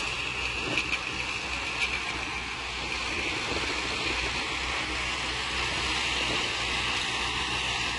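Heavy earthmoving machinery's diesel engine running steadily, a low rumble with a steady high whine over it.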